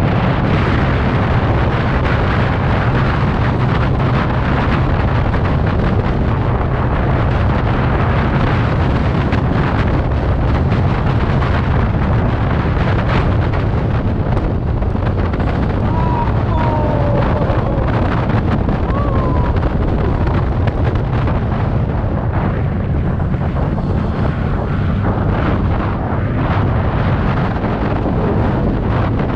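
Wind rushing and buffeting over the camera microphone of a TVS Ntorq 125 Race XP scooter riding at highway speed, about 85 km/h. It is a loud, steady rush, heaviest in the low end, with the scooter's running and road noise under it.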